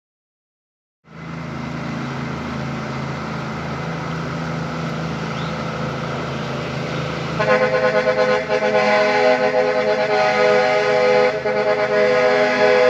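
Diesel truck engine running steadily, then about seven seconds in an air horn starts sounding loud, steady chords, held with a few brief breaks over the engine.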